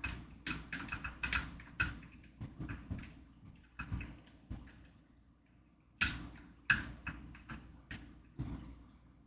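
Irregular light clicks and taps from a needlework stand's bolts and parts being handled as a bolt is turned in by hand, with a lull partway through and a few sharper knocks about six to seven seconds in.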